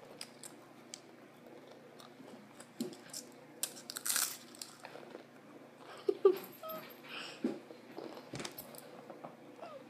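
Saltine crackers being broken and chewed: scattered small crunches and clicks, with one louder crunch about four seconds in.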